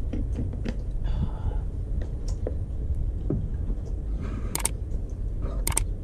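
Small clicks and taps of a plastic water bottle being handled and a spoon against a ceramic bowl, over a steady low rumble, with a couple of sharper clicks near the end.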